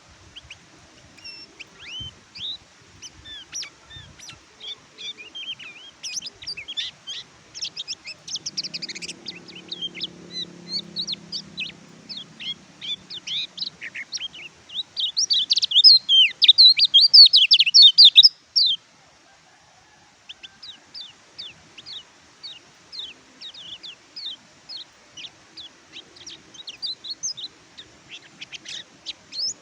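Kecial kuning white-eye singing a rapid, high-pitched twittering song of short, quick chirps. Midway the song swells into a loud, dense burst that breaks off suddenly, then resumes after a short pause as steadier, evenly spaced chirps.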